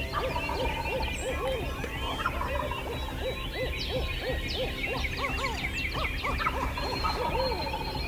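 Birds calling at dawn over an open field: a busy mix of songbird chirps over a run of short, repeated low calls, a few each second.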